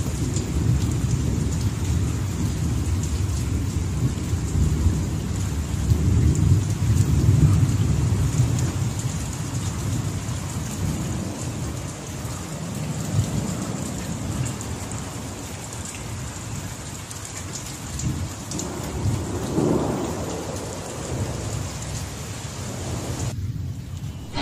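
Long, low rolling rumble of thunder over a steady hiss of rain, loudest in the first ten seconds and then slowly dying away.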